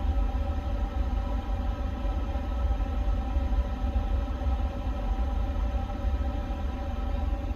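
Steady hum and low rumble of a powered-up Airbus A350 cockpit, a few steady tones over a deep rumble without change.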